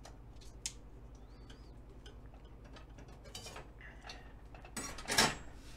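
Small outer leaves of a fresh artichoke being snapped off by hand near the stem: faint crisp clicks and rustles, with a louder crisp snap or scrape about five seconds in.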